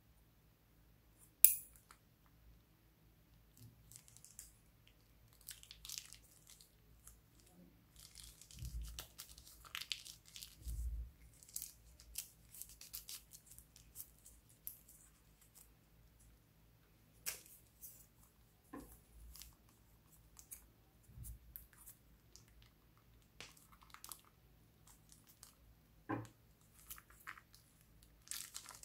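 Scissors snipping the tip off a plastic piping bag, one sharp snip about a second and a half in. Then plastic piping bags rustling and crinkling as they are handled and squeezed, with a few sharper clicks.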